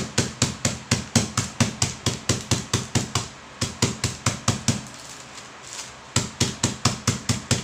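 A sealed packet of crackers being pounded on a tabletop with a white block to crush it into crumbs. The knocks are quick and even, about four or five a second; they stop for about a second some five seconds in, then start again.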